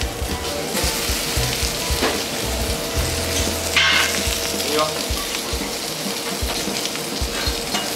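Skewered langoustine tails sizzling steadily in hot oil in a frying pan over a gas flame, with a brief louder burst of sizzle about four seconds in.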